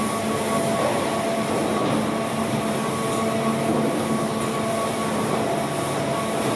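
Industrial baling press running, its hydraulic power unit giving a steady machine noise with a constant hum.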